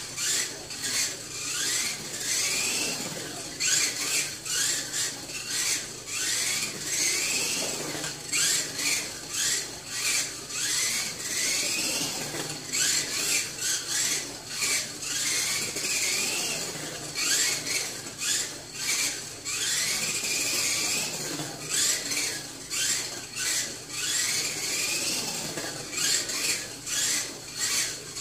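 A 1/28-scale Mini-Z radio-controlled car with its stock brushed motor, running laps: the motor whine rises in pitch with each burst of throttle, again and again every second or two, over a steady high hiss and many short sharp clicks.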